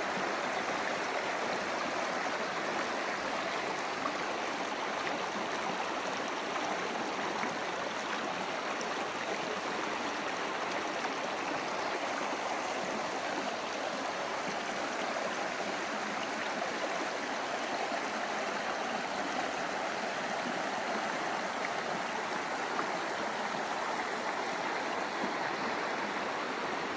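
Shallow mountain stream flowing steadily over a bed of stones and cobbles.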